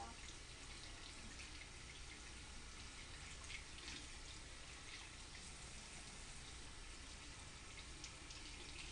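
Bathroom sink faucet running faintly and steadily, the water splashing over a kabuki makeup brush held in the stream and into the basin to soak the brush.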